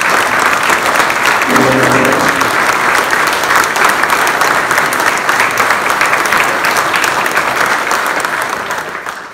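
Audience applauding, many people clapping steadily, dying away near the end.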